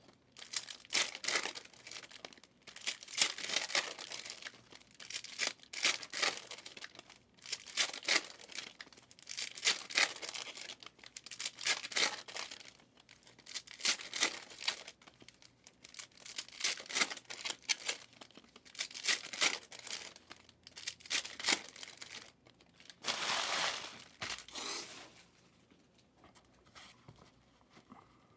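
Trading-card pack wrappers being torn open and crinkled, one after another, with a burst of crackling about every two seconds. It goes much quieter for the last few seconds.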